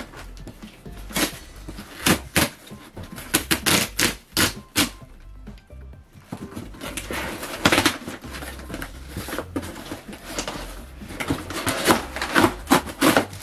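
Cardboard shipping box being opened by hand: tape ripped, flaps pulled open and crumpled kraft packing paper rustled, a run of sharp rips and crinkles in clusters with a brief lull in the middle.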